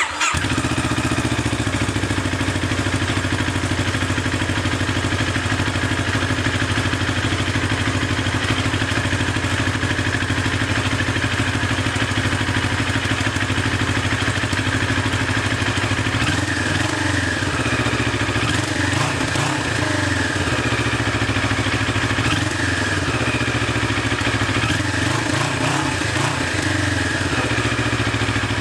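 CFMoto NK400 parallel-twin engine idling steadily through an Akrapovic-style slip-on canister with a twisted-loop mid pipe and stock headers.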